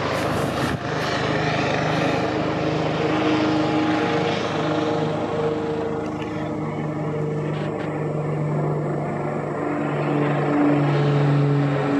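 Police helicopter flying overhead: a steady rotor and turbine drone with a low hum that grows louder over the last couple of seconds as it comes closer.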